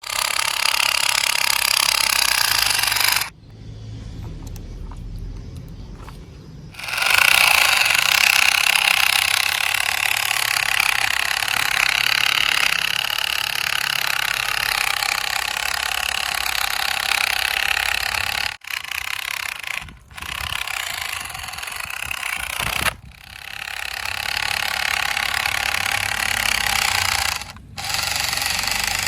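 Steady buzzing whir of a toy RC truck's small electric motor and plastic gearbox. It drops away for a few seconds near the start and breaks off briefly three or four more times.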